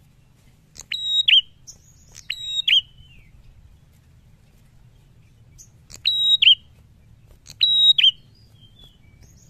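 Prenjak (prinia) in a cage calling loudly: four short bursts of sharp, piercing high notes, each ending in a quick downward-sliding whistle, coming in two pairs.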